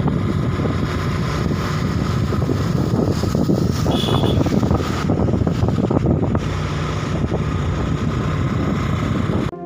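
Wind buffeting the microphone on a moving Suzuki Access 125 scooter, with the scooter's engine and road noise running steadily underneath. A brief high beep sounds about four seconds in.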